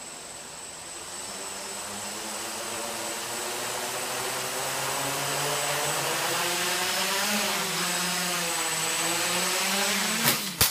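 Quadcopter's brushless motors and propellers spinning up as the throttle is raised slowly, a whine and buzz growing louder with wavering pitch. Near the end come sharp clattering strikes as the quad rotates and tips over on take-off and its props hit the floor. This is a fault the owner cannot explain.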